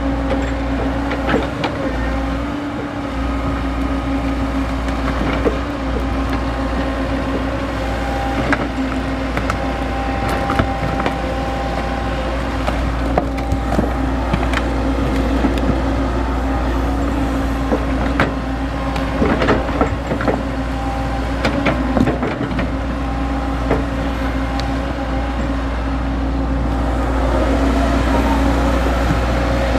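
XCMG XE75G excavator's diesel engine running steadily, with a constant hum and scattered sharp knocks and clanks from the machine at work. It gets a little louder near the end.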